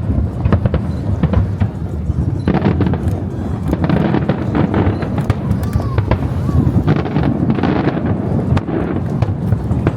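Aerial fireworks shells bursting in quick succession, a dense run of booms and crackles over a continuous low rumble.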